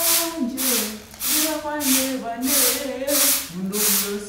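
Short straw hand broom sweeping paving stones in regular swishing strokes, about one and a half a second. A voice sings long held notes underneath the sweeping.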